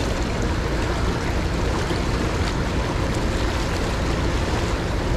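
Steady rush of a fast, shallow creek riffle, with wind buffeting the microphone and adding a low rumble.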